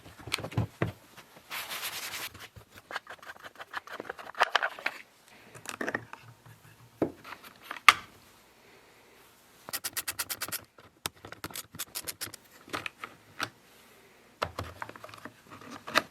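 Workshop handling noises from a Stihl MS460 chainsaw being taken apart by hand: clicks, knocks and scrapes of tools and plastic and metal parts. A brief scraping comes about two seconds in, and there are two quick runs of rapid, evenly spaced clicks past the middle.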